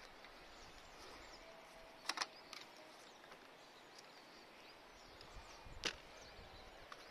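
Faint open-air background with light high chirping, broken by two sharp clicks: one about two seconds in and one near six seconds.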